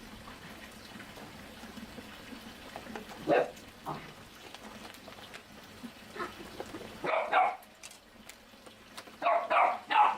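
A dog barking in short separate barks: one about three seconds in, two together a few seconds later, then a quick run of barks near the end.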